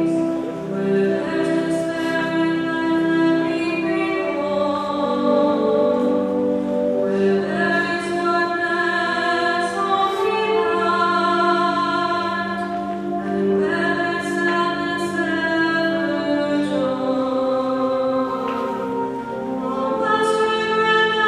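A hymn sung by a choir, with long held notes that move together to new chords every few seconds.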